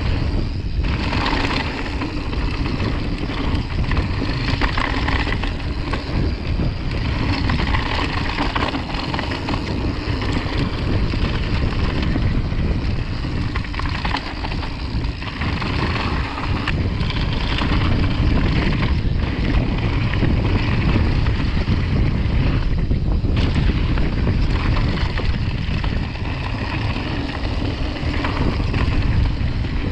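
Wind rushing over the microphone while a mountain bike descends a dirt and gravel trail, with the rumble of its tyres rolling over the rough ground.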